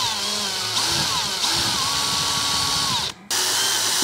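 Power drill with a long 1/8-inch bit drilling down through a plastic case, its motor pitch rising and falling as the bit bites. It stops briefly about three seconds in, then starts again.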